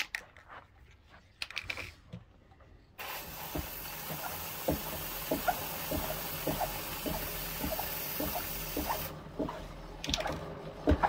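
Aerosol spray can hissing steadily onto a motorcycle drive chain, starting about three seconds in and stopping about six seconds later. Small irregular clicks run along with it.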